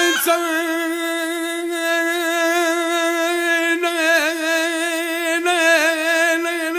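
A singer holding one long note of Tunisian Bedouin song, with a slight waver about four seconds in and again near the end.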